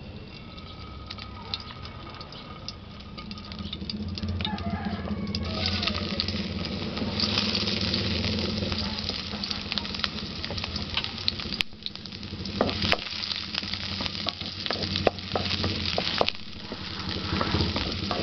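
Chopped onion and garlic sizzling in hot oil in a wok, rising to a loud sizzle about five seconds in. Through the second half a spatula scrapes and knocks against the wok as the aromatics are stirred.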